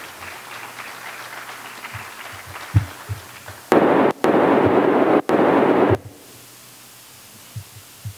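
Audience applause dies away, then a few low thumps and about two seconds of loud crackling static from the podium microphone as it is handled, cutting out briefly twice before stopping suddenly.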